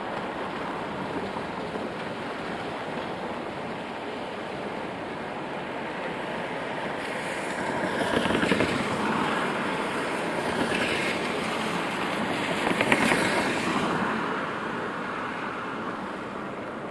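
Steady rainfall with city traffic on wet streets. Tyre hiss from passing vehicles swells from about halfway through, peaks twice, then fades back to the rain.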